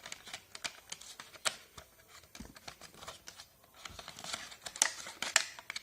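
Sealed plastic earphone packaging being handled and opened by hand: crinkling with many sharp clicks and snaps, the loudest cluster of them near the end.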